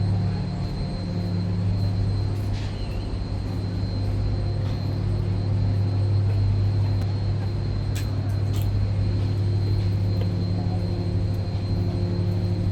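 A steady, loud, low machine hum, with a few faint clicks over it.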